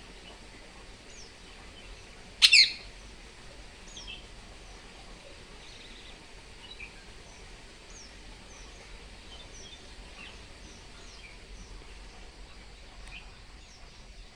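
Green parrots calling: one short, loud squawk about two and a half seconds in, with scattered faint chirps through the rest.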